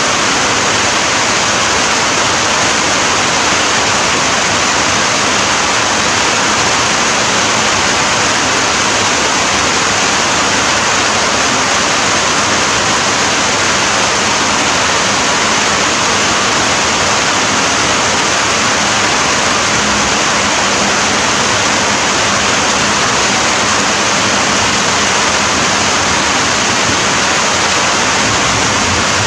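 Heavy rain falling steadily: a dense, even hiss with no single drops standing out.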